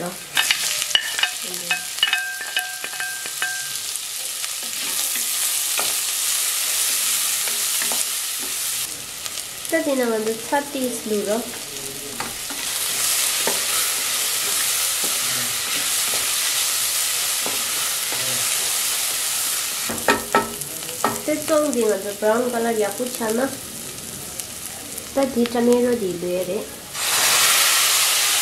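Chopped onions frying and sizzling in hot oil in an aluminium pot, stirred with a wooden spatula that scrapes the pot bottom in short bouts. Near the end the sizzle suddenly grows louder as puréed tomato is dropped into the hot oil.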